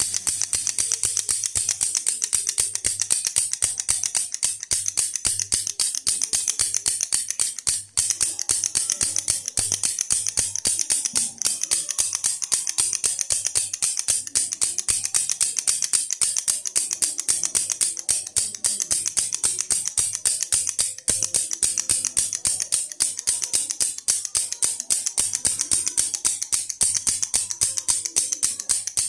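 Plastic toy baby rattle shaken rapidly and steadily, a dense stream of bright clicks, with a brief break about eight seconds in and a short dip about twenty-one seconds in.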